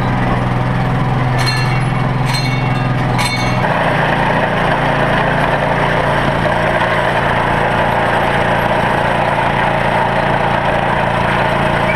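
Engine of a miniature ride-on park train running steadily under way, with a few sharp metallic clinks in the first few seconds; its sound changes about four seconds in.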